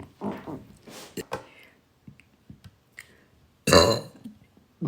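A woman burping: a few small, soft sounds in the first second or so, then one loud burp lasting about half a second near the end, with the next loud burp starting just as it closes.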